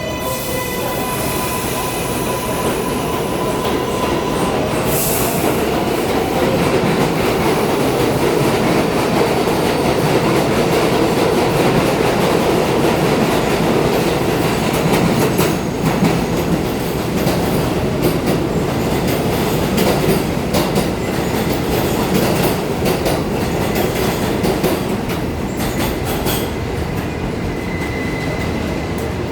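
New York City subway train running through the elevated station: a loud, steady rumble of wheels on rail with clicks over the rail joints and thin wheel squeals. The sound builds to a peak in the middle and eases off toward the end.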